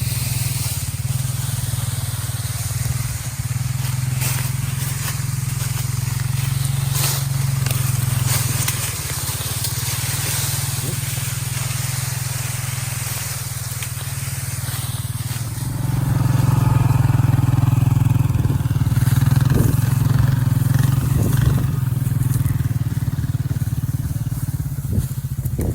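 Honda ATV's single-cylinder engine running steadily under load while it skids logs, getting louder about two-thirds of the way in.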